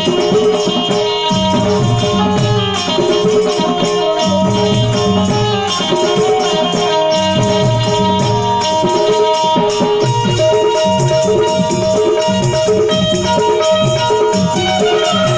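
Live devotional folk music played without vocals: a harmonium plays held notes and melody over a steady tabla rhythm, with shaken percussion giving a fast rattling pulse.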